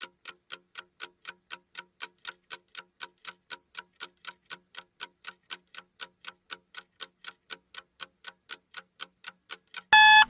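Clock-ticking sound effect for a countdown timer, evenly at about four ticks a second. Near the end a loud electronic alarm beep starts as the timer reaches zero.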